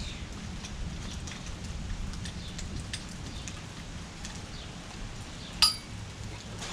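Scattered light ticks and clicks over a low steady rumble, with one sharp ringing metal clink about five and a half seconds in.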